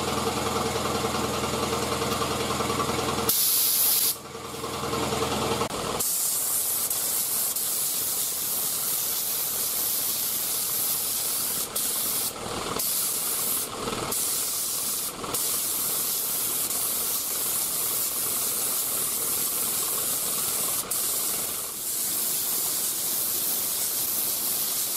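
3M Performance HVLP spray gun hissing as it sprays a light tack coat of single-stage urethane paint in long passes, the air cutting off briefly a few times as the trigger is released between passes. A steady machine hum runs for the first few seconds and stops about six seconds in.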